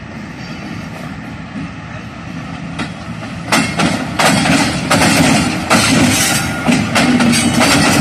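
Twin RGE-24 diesel-electric locomotives running light, their engines droning low as they approach. From about three and a half seconds in it turns much louder, with heavy, irregular wheel clacks as the wheels bang over the gaps in the diamond crossing right beside the camera.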